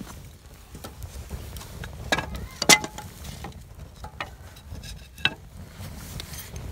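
Split kindling sticks knocking and clattering as they are laid onto a burning fire in a steel fire stand: a few sharp wooden knocks, the loudest about two and a half seconds in with a brief ring, over the light crackle of the fire.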